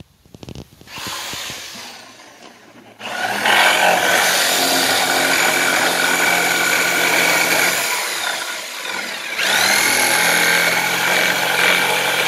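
Ryobi variable-speed jigsaw with a 4.8-amp motor starts up about three seconds in and saws through a wooden board with a steady motor whine, cutting easily. It eases off about eight seconds in, then speeds back up with a rising whine.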